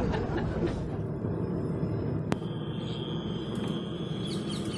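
Steady low running noise of a car on the move, with a single sharp click about two seconds in and faint bird chirps near the end.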